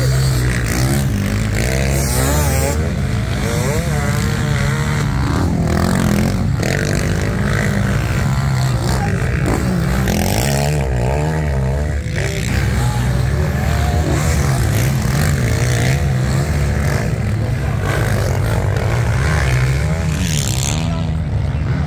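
Several motocross bikes racing, their engines revving up and down as they pass, overlapping.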